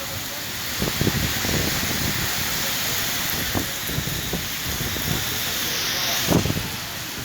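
Heavy rain falling as a steady hiss, with a few short low thumps, the strongest about six seconds in.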